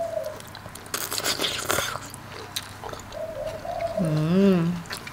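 Mukbang eating sounds: a noisy slurp and chew of rice noodles about a second in. Near the end comes a loud hummed "mmm" whose pitch wavers up and down.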